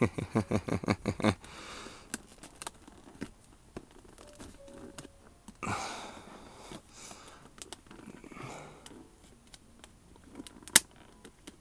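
Plastic phone packaging being cut open and handled. A quick run of clicks comes at the start, then scattered crackles and rustles, and one sharp snap near the end.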